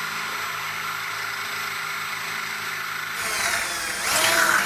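Cordless drill running at speed, drilling a pilot hole into the truck bed's sheet metal. About three seconds in, the steady whine turns louder, into a wavering squeal as the bit cuts into the metal.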